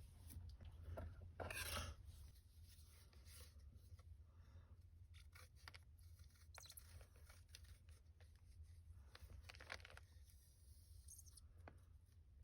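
Reformed gym chalk being crushed and rubbed by hand, giving faint gritty crackling and scraping. There are louder bursts about a second and a half in and again near the ten-second mark.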